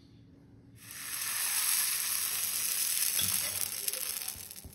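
Sponge dosa batter sizzling on a hot dosa tava: a steady hiss that starts about a second in and fades near the end.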